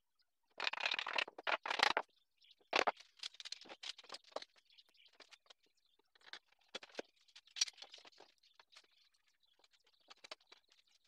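Wooden board and steel clamps being handled on a workbench during a glue-up: a scraping shuffle about half a second in, then a sharp knock and a run of irregular clicks and knocks of metal and wood as the clamps are set and tightened.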